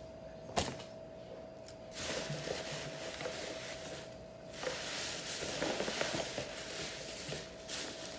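One sharp knock, then two long stretches of rustling as gift packaging is handled, over a faint steady hum.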